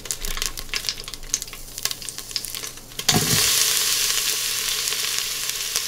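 Green onion whites and sliced onions going into hot oil in an Instant Pot's stainless inner pot on high sauté: scattered crackling pops at first, then about three seconds in a thump as the onions land and the sizzle jumps to a loud, steady hiss.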